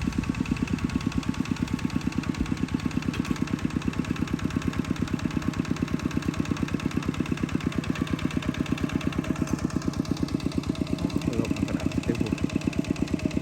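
Small engine running steadily, its firing heard as a fast, even train of pulses.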